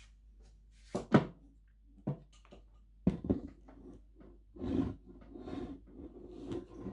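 A geometric wire lamp shade being set down and handled on a tabletop: a few sharp knocks and clicks, the loudest about a second in, then a stretch of scraping and rustling as it is shifted and adjusted.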